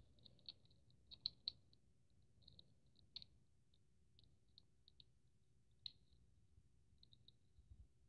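Faint, scattered small clicks as a drain plug is turned by hand into a dirt bike's crankcase, a few of them slightly louder, with near silence between.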